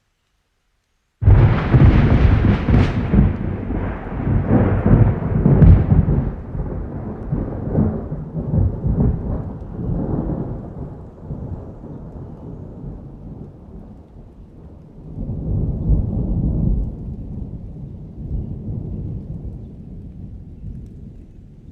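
Thunder: a sudden crackling clap about a second in, then a long low rumble that slowly fades, swelling again with a second rumble near the end.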